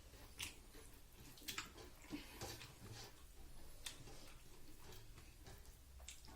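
Faint eating sounds: quiet chewing with a handful of short, sharp mouth or food clicks scattered through.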